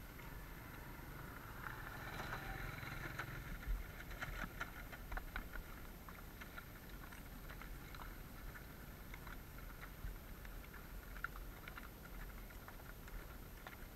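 Horses walking along a river: irregular hoof clicks on stones with some splashing, busiest a couple of seconds in.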